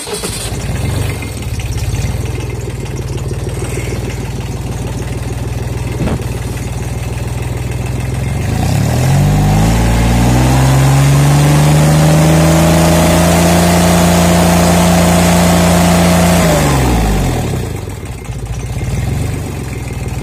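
Sonalika DI 22 mini tractor's 20 hp diesel engine idling, then revved up a little under halfway in, held at high revs (about 2,300 rpm on the tachometer) for some six seconds, and let fall back to idle.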